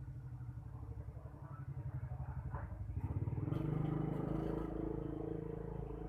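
A small electric motor running with a fast, even buzz, growing louder and fuller about three seconds in.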